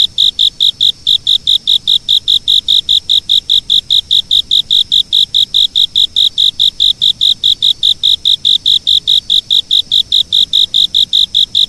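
Cricket chirping in a steady, even rhythm of about four to five high-pitched chirps a second, with one brief pause about a second in.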